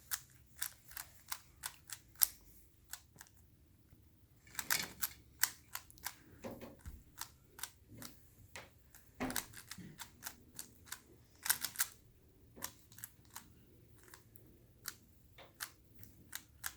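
Rubik's Cube being turned by hand: quick irregular plastic clicks and clacks of the layers snapping round, with a few faster bursts of turns.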